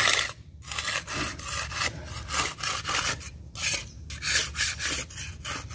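Metal scraper blade scraping along a finished wall's surface in quick, repeated strokes, with brief pauses about half a second in and again past three seconds.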